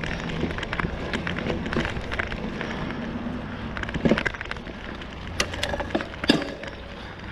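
Specialized Rockhopper aluminium mountain bike rolling along a dirt singletrack trail: tyres crunching over the dirt and the bike rattling over bumps, with many sharp clicks and a couple of louder knocks, about four and six seconds in.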